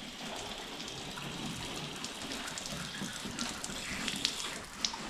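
Water running and splashing in a steady stream, with scattered small clicks and knocks.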